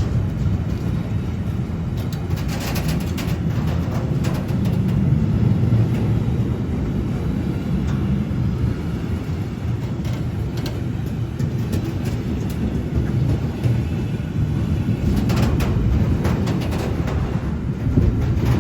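Train running with a steady low rumble, with brief bursts of clattering about three seconds in and again near the end.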